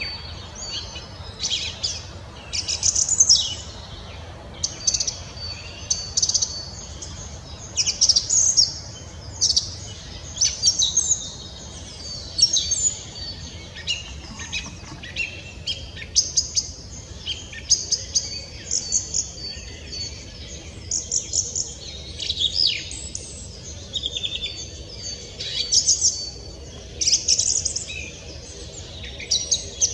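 Song thrush singing: a run of short, high-pitched phrases, each about a second or less long, with brief pauses between them.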